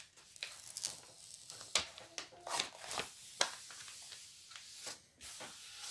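Faint crackling and rustling of a large diamond painting canvas being handled as its corners are peeled free, with scattered small ticks and crinkles.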